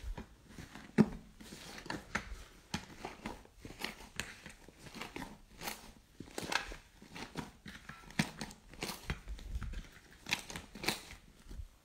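Slime being squished and pulled by hand close to the microphone, giving dense, irregular crackles and pops with a sharp snap about a second in.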